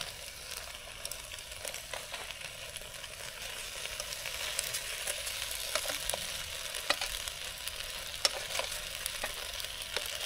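Chicken frying and sizzling in the pan of a Trangia camping stove, with scattered light clicks of metal tongs stirring and turning it.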